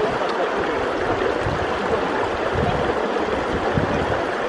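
A stream flowing, a steady rush of running water.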